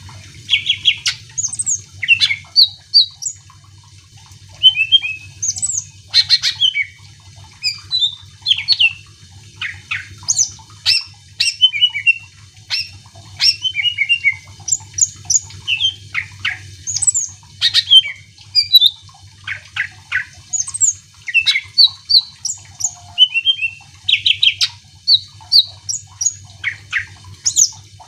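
Cucak ijo (green leafbird) singing a fast, varied run of sharp whistles, chirps and short trills with hardly a pause, over a faint steady low hum.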